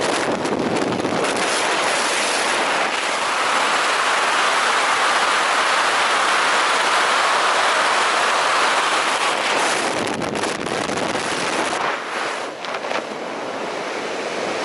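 Steady, loud rush of air across a skydiver's camera microphone, dipping briefly near the end.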